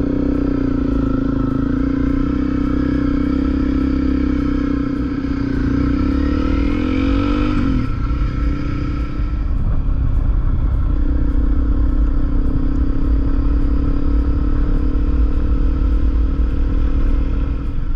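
Honda CRF250L single-cylinder motorcycle engine running under way, over heavy wind rumble on the microphone. The engine note climbs and then drops sharply about eight seconds in before running steady again.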